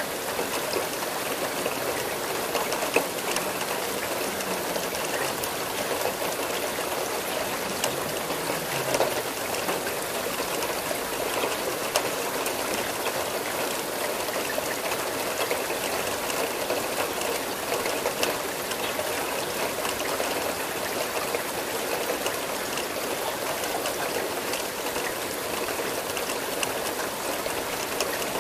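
Steady rain falling, an even hiss dotted with the sharp ticks of individual drops.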